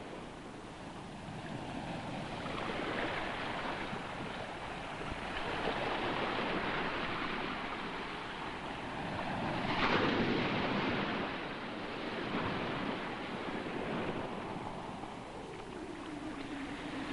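Ocean surf: waves washing in and drawing back, rising and falling in slow swells every few seconds, the loudest about ten seconds in.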